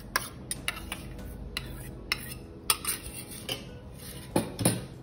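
Metal spoon clinking and scraping against a steel bowl while stirring neutral gel coloured yellow. Scattered sharp clicks, with two louder knocks near the end.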